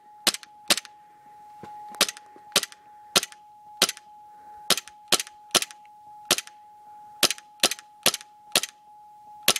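Gas blowback Glock airsoft pistol firing 6mm BBs: a long string of sharp shots, about eighteen, coming steadily about every half second.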